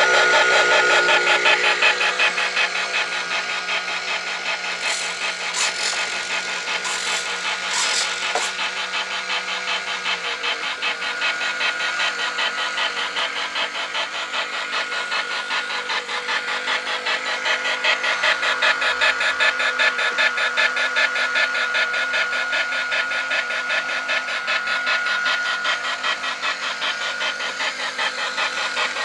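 Engine of a model steam launch running steadily on its test stand, with a rapid, even beat. A few short hisses come between about five and nine seconds in.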